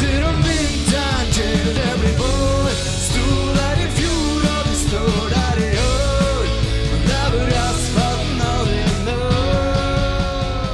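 Rock music played by a full band with a sung lead vocal. The singer holds one long note near the end.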